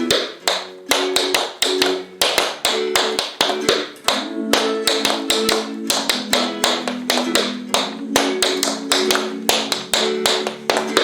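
Tap shoes striking a hard floor in a quick, steady rhythm of taps, ball changes, digs, brushes and hops: a beginner tap amalgamation danced in time to background music with plucked-string accompaniment.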